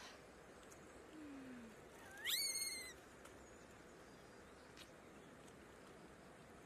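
A single high-pitched animal call, less than a second long, rising in pitch and then holding, about two seconds in, over a faint steady background hiss.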